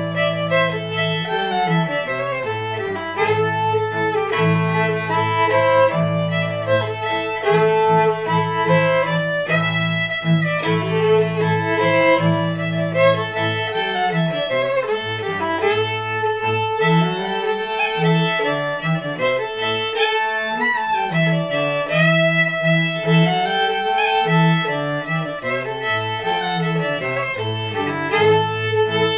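Fiddle and cello playing an old-time fiddle tune together: the fiddle carries the melody while the bowed cello holds long low notes, changing to shorter, rhythmic bow strokes about halfway through.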